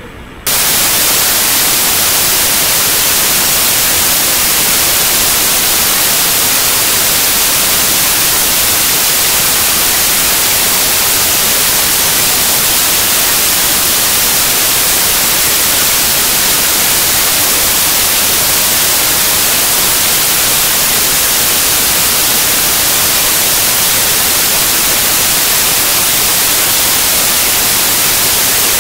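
Loud, steady static hiss that cuts in abruptly about half a second in and holds unchanged, with no tones or rhythm: a recording fault rather than a real sound.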